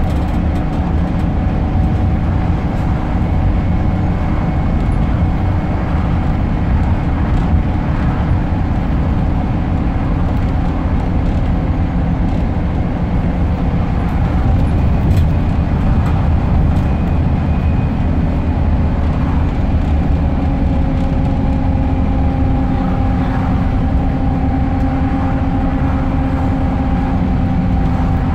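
Scania K270UB bus's rear-mounted five-cylinder diesel engine running under way, heard from inside the passenger saloon: a steady low drone mixed with road and tyre noise. Faint whining tones shift in pitch about two-thirds of the way through.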